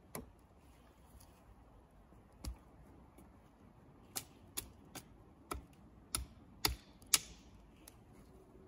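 Wood being chopped with an axe: sharp single blows, one near the start and one about two and a half seconds in, then a quicker run of seven blows about half a second apart from about four seconds in.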